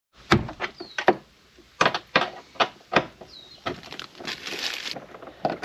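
A run of sharp clicks and knocks, about a dozen over three seconds, then a rustling scrape, as hard interior parts of a Jeep Gladiator's cabin are handled and moved.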